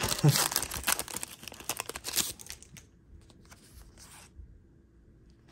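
Foil wrapper of a Pokémon trading card booster pack being torn open and crinkled: a rapid run of crackles that dies away about three seconds in, leaving only faint handling sounds.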